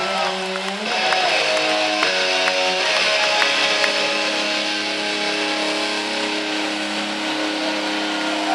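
Live rock band's distorted electric guitars ringing out sustained chords, changing a few times in the first three seconds and then holding one long chord.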